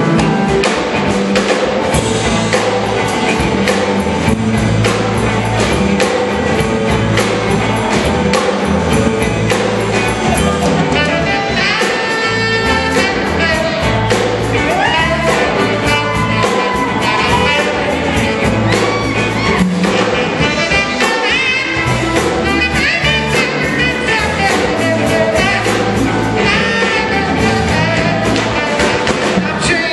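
Live band playing an upbeat number: electric guitar and drum kit keep a steady beat, and a tenor saxophone plays melody lines over them, taking the lead from about the middle on.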